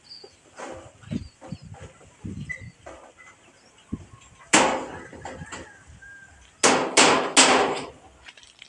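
Metal knocks and clangs from a corrugated metal roofing sheet being fitted and struck on a bamboo frame. Softer knocks come first, then one loud clang about halfway and three loud clangs in quick succession near the end, each ringing briefly.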